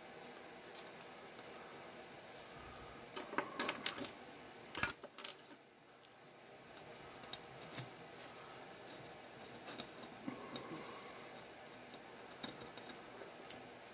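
Small metal hand tools and screws clinking against each other on a wooden workbench as a small wrench is picked out, with a cluster of sharp clinks about three to five seconds in. Later come faint light ticks of metal on metal as the wrench works a screw on an aluminium cover.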